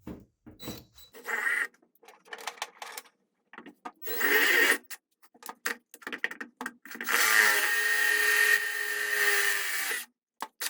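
Power drill boring holes through double-walled body sheet metal: two short bursts, then a steady run of about three seconds with a whining motor pitch that cuts off near the end.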